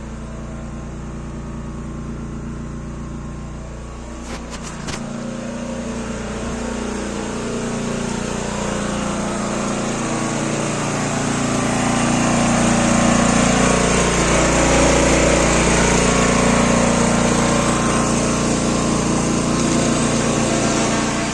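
A woodworking power tool's motor running steadily, growing gradually louder toward the middle, with a few sharp clicks about four seconds in.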